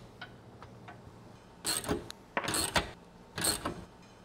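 Ratchet wrench clicking in three short runs, starting about a second and a half in, as a bolt is tightened through a steel bench bracket.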